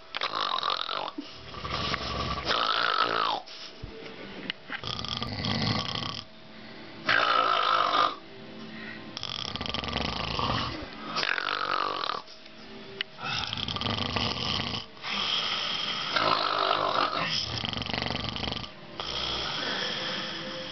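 Two people snoring heavily in deep sleep, one loud snore after another every second or two, a few of them sliding down in pitch at the end.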